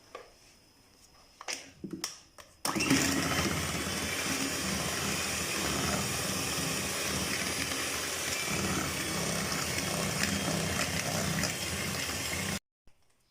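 Electric hand beater running steadily, beating eggs, sugar and oil into a creamy batter in a bowl. It starts about two and a half seconds in after a few light knocks, and cuts off abruptly near the end.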